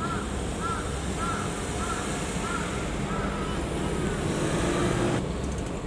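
Steady road traffic and vehicle noise, with a run of short, evenly spaced high calls repeating a little less than twice a second and fading out after about four seconds. The sound changes abruptly about five seconds in.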